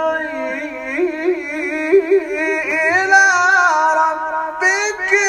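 A man's voice in melodic Quran recitation (tajweed chant), holding one long drawn-out note decorated with quick wavering turns, then stepping up to a higher pitch near the end.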